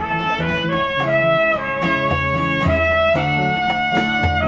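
Live instrumental intro played on an acoustic-electric guitar. Over the guitar runs a melody of long held notes that step from one to the next, with low bass notes underneath.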